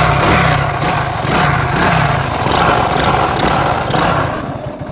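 A 50cc motorcycle engine running with a harsh mechanical noise from inside the engine, not from the spark plug; the mechanic calls it engine knock, and teardown finds a broken main support bearing. The sound dies down near the end.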